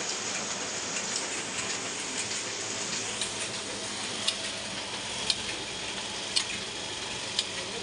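Ryobi 3302H two-colour sheet-fed offset printing press running at full speed: a steady mechanical hiss of the running machine, with a sharp click about once a second from about three seconds in.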